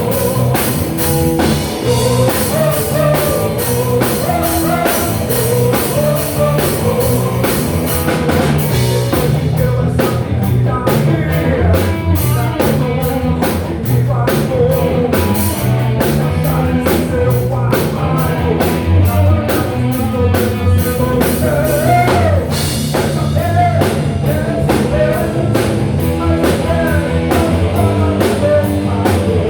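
Rock band playing live: a steady drum-kit beat with electric guitar and bass, and a singing voice over it.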